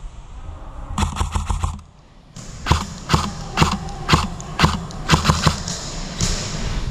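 Airsoft guns firing indoors: a short rapid burst about a second in, then single shots about two a second.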